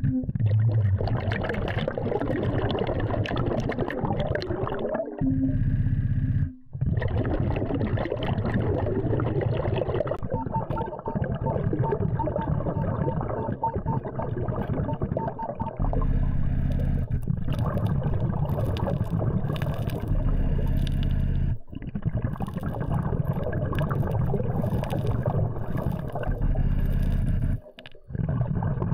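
Underwater sound of a diver's breathing gear: bubbling and gurgling over a steady low hum, broken by a few short pauses.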